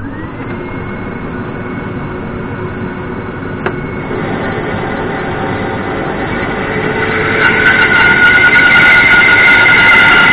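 Workshop dust extractor switched on, its motor spinning up with a quickly rising whine, then running steadily and loud. One click about four seconds in, and the machine noise grows louder with added steady tones from about seven to eight seconds in.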